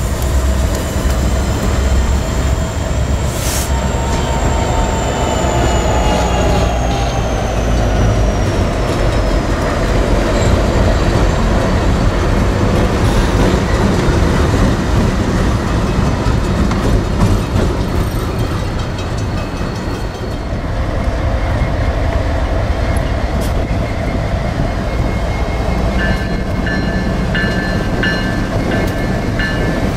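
Freight train rolling on the rails: a steady heavy rumble with wheel clatter. A thin high squeal slides down in pitch early on, and a few high pulsing tones come in near the end.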